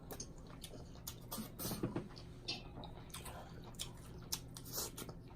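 Eating at close range: chewing, with scattered small clicks and taps at irregular intervals.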